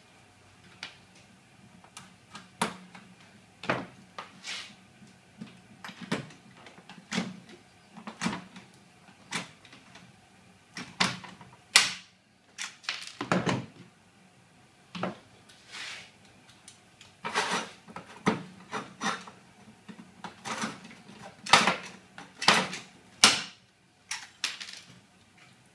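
Irregular knocks, taps and clicks of steel trunking lid pieces and a hand pop-rivet gun being handled and set against a wooden workbench, with a few sharper clicks among them.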